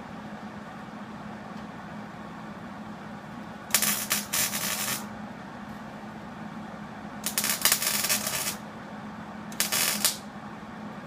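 Welder arc crackling in three short tack welds on a truck's replacement rocker panel, each burst about a second or less, with a steady low hum underneath.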